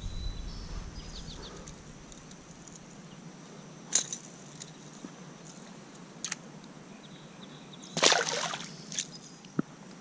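Faint river ambience with a few sharp clicks, then a short splash about eight seconds in as a small bass is let go back into the water.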